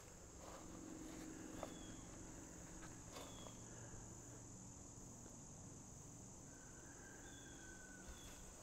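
Faint, steady high chirring of crickets in near silence, with a few soft clicks and a couple of brief, faint high notes.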